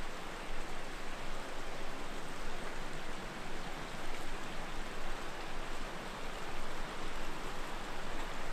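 Strong wind rushing through forest trees: a steady hiss that surges a little up and down.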